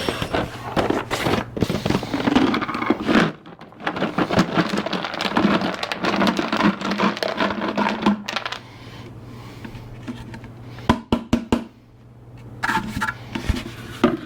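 Small wooden segments clattering and rattling as they are tipped out and handled, freshly tumbled in a jar to knock off their fuzzy edges. The clatter is dense for the first half, then gives way to a steady low hum with a few sharp knocks near the end.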